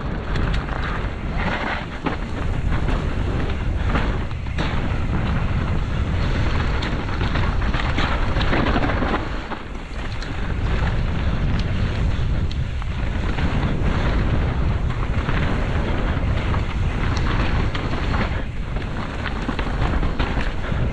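Wind rushing over the microphone of a camera worn by a mountain biker descending a rocky trail at speed, with tyres crunching over gravel and stones and frequent short knocks and rattles from the bike over the rough ground.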